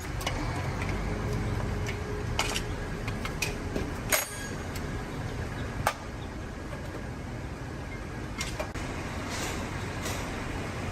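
A steady low motor hum, with about six sharp metallic clinks and knocks scattered through it; the loudest comes about four seconds in.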